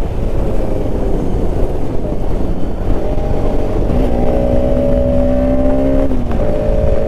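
Bajaj Pulsar RS200's single-cylinder engine running under way over a steady rush of wind noise. From about three seconds in its pitch climbs as it accelerates, then drops sharply about six seconds in at a gear change and carries on.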